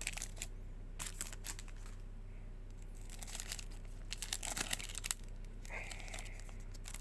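Foil wrapper of a Panini Prizm football card pack crinkling in several short bursts as it is handled.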